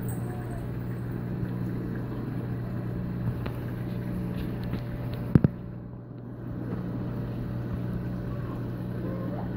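Steady low hum with an even rushing noise from reef-aquarium pumps and water circulation. A single sharp knock comes about five and a half seconds in.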